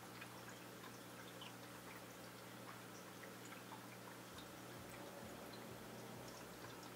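Near silence: faint room tone with a steady low hum and scattered faint ticks.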